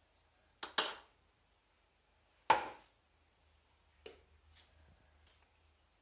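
Two metal forks clicking and scraping as they spread soft cornmeal dough over a filling in a metal baking tray: a few short, scattered knocks, the loudest about two and a half seconds in.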